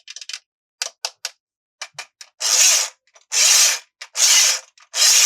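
Toy packaging being opened by hand: a few light clicks, then four loud rasping strokes a little under a second apart, each lasting about half a second.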